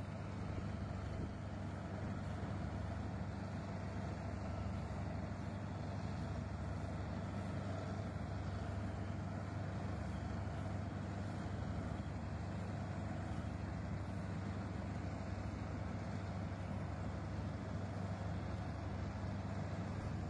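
A heavy machine's engine running steadily: an even low drone that holds the same pitch throughout.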